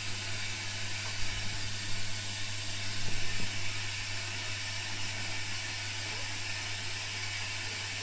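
Front-loading washing machine running, a steady hum under an even hiss, with a few soft thumps about one and three seconds in.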